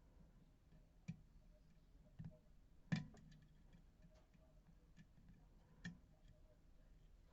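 Faint small clicks and ticks of a lock pick and tension wrench working the pins of an MTL Interactive lock cylinder, with four sharper clicks, the loudest about three seconds in.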